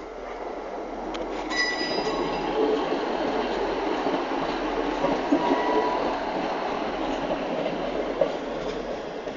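Class 158 diesel multiple unit moving through the station: a steady rush of wheel and rail noise that swells over the first couple of seconds and eases near the end, with a brief high wheel squeal about one and a half seconds in.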